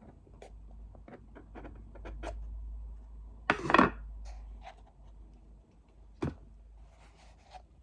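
Hands opening a Hermès box: scattered small taps, clicks and rubbing as the lid and packaging are handled. There is a louder scrape about three and a half seconds in and a sharp knock a little after six seconds.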